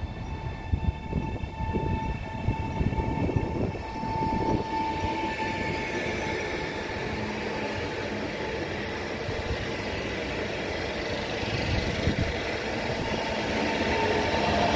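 Koleje Wielkopolskie 48WE electric multiple unit pulling out of the station: a steady electric drive whine for the first few seconds over irregular knocks from the wheels and couplings, then a rising rumble of wheels on rail as the train passes close near the end.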